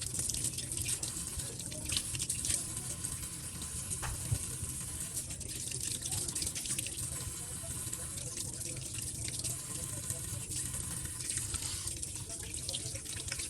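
Tap water running steadily into a sink while a fish is rinsed, with small splashes and knocks of handling here and there.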